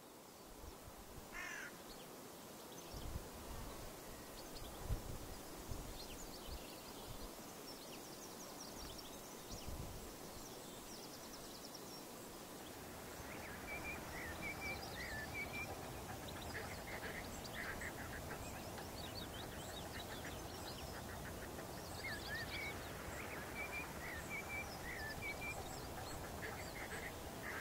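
Faint outdoor ambience with birds calling: groups of short, high, repeated calls come in from about halfway through, over a low steady hum. A few soft low thumps in the first part.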